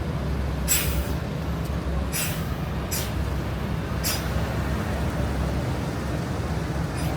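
Buses idling with a steady low diesel rumble, with four short sharp hisses of compressed air from their air brakes about a second apart.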